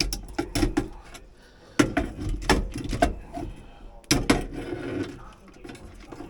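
Clatter of metal tools and parts being handled: irregular clicks and knocks in several short clusters, the loudest about two seconds in and about four seconds in.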